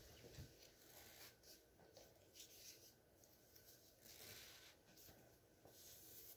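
Near silence with faint, irregular rustling of a cotton hoodie and its drawstring being handled.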